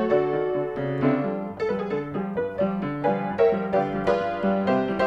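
Background piano music: a quick, even run of notes over a lower accompaniment.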